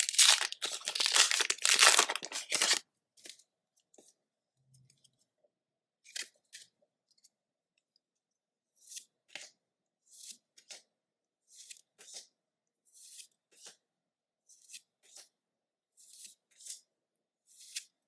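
A foil Pokémon booster pack wrapper being torn open with loud crinkling that stops about three seconds in. Then trading cards are slid over one another, soft short swishes about once a second.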